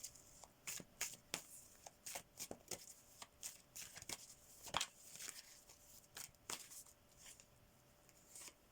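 Tarot cards being shuffled and handled: a run of soft, quick flicks and snaps of card stock, thinning out near the end.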